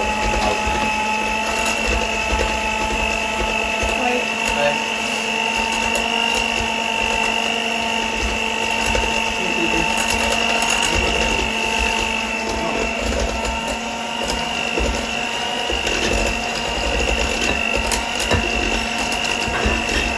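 Electric hand mixer running at a steady speed, its twin beaters whisking brownie batter in a glass bowl, with a constant motor whine.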